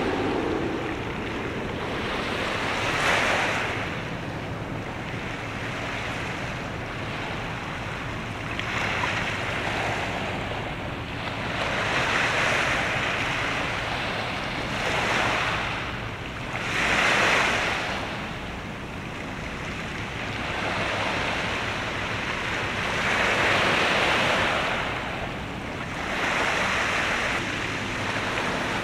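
Waves washing against the shore in surges every few seconds, each rising and falling away, over a faint steady low hum.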